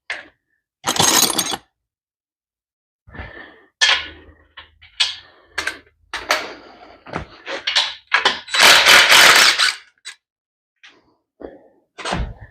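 Metal parts and hand tools clanking, knocking and scraping on a motorcycle being taken apart: a string of separate knocks, then a longer loud clattering scrape about eight and a half seconds in.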